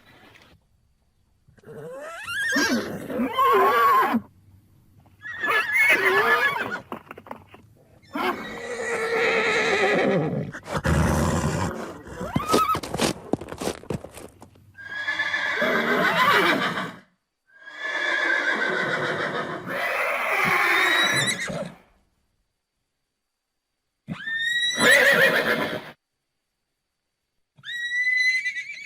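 Horses neighing: about seven separate whinnies, each one to four seconds long, with silent gaps between them. A few sharp clicks come in the middle.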